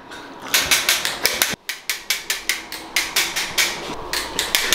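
A rapid series of sharp clicks or knocks, about five or six a second, with a brief break about one and a half seconds in.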